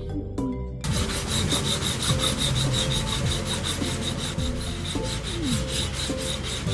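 Cartoon sound effect of a robotic arm working on a truck on an assembly line: a fast, rhythmic rasping scrape like filing, starting about a second in, over soft background music.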